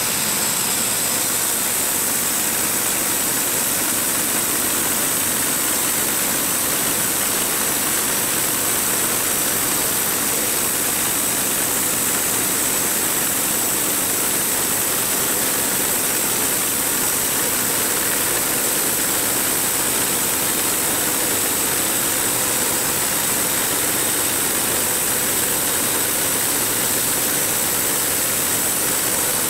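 Gasoline engine of a portable bandsaw mill running steadily under load as the band blade saws a 5/4 slab from a white ash log, a constant mechanical noise with a strong hiss.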